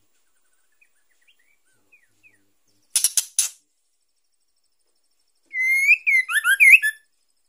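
A female white-rumped shama calling, of the kind used to bring a male into breeding condition. About three seconds in come three or four quick, harsh, scratchy notes. A second and a half later there is a rapid run of loud whistled notes sweeping up and down.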